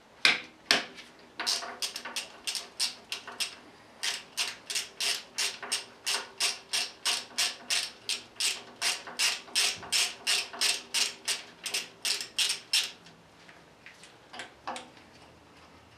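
Hand tools working a seized bolt on a diesel engine bracket: a steady run of sharp metallic clicks, about three a second, with a faint metallic ring. The run stops about thirteen seconds in, and a few lighter clicks follow.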